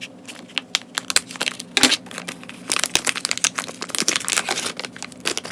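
Packaging of a new RC brushed motor being opened by hand: repeated crinkling and rustling with sharp clicks and taps.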